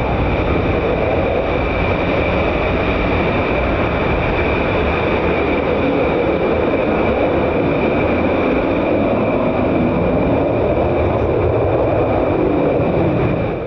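Military jet engines running: a steady, loud roar with a high-pitched whine riding on top.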